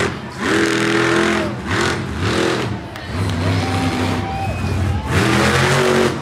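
Monster truck engine revving hard in repeated surges, its pitch climbing and falling several times, with one longer held rev near the middle.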